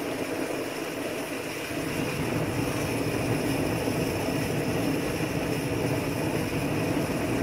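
MSR XGK EX multi-fuel stove burner running with its BernieDawg silencer cap fitted, a steady rushing burn as the pressurized fuel vaporizes and the flame settles to blue while the stove warms up after priming. Rain is falling in the background.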